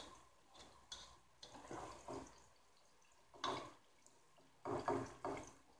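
Spatula stirring and scraping through frying onions in a black pot, in a handful of short, irregular strokes, the loudest a little past the middle and near the end.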